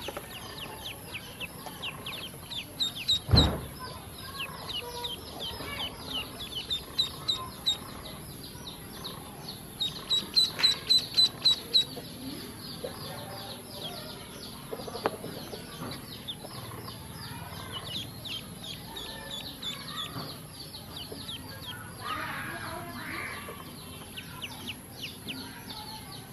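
Ducklings peeping: many short, high peeps that slide down in pitch, with a loud quick run of about four peeps a second around ten seconds in. A single dull thump comes about three seconds in.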